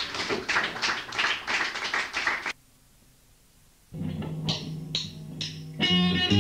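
Lo-fi tape recording of a rock band: rhythmic sharp percussive hits break off abruptly into a gap of near silence, a tape edit between takes. Then a steady low amplifier hum with three clicks about half a second apart, and an electric guitar comes in near the end.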